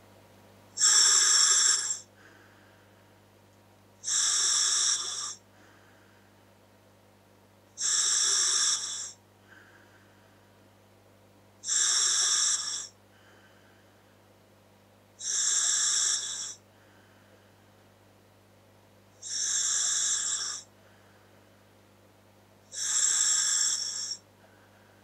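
Slow, regular breathing through a scuba regulator fitted to a Dräger full-face mask: seven loud hissing breaths, each about a second long, roughly every four seconds, with a faint steady hum between them.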